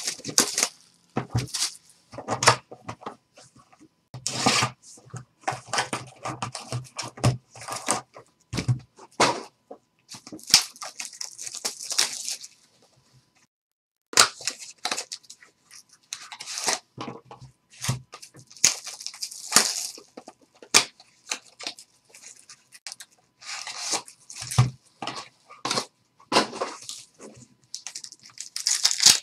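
Plastic-wrapped trading-card packs and their box being handled and torn open by hand: irregular crinkling and tearing of the wrappers, with a short pause about halfway through.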